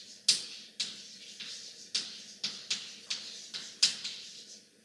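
Chalk on a blackboard as words are written: short, sharp taps and scrapes, about two or three strokes a second.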